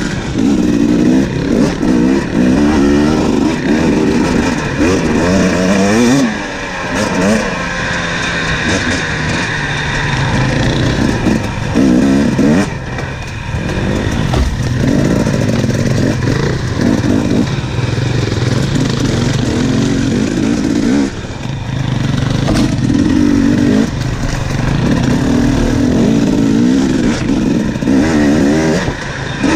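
2017 KTM 250 EXC's two-stroke single-cylinder engine, ridden on a dirt trail, revving up and down over and over as the throttle opens and closes, with brief drops in level when the throttle is shut off.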